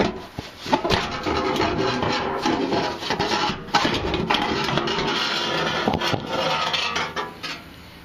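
Sheet-metal exhaust heat shield scraping and rubbing against the car's underbody as it is worked loose by hand, a continuous rasping that starts under a second in and dies away near the end.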